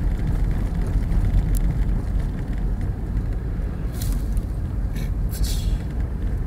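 Inside a moving car on snow and ice: a steady low rumble of engine and tyres, with a few brief scratchy hisses about four and five seconds in.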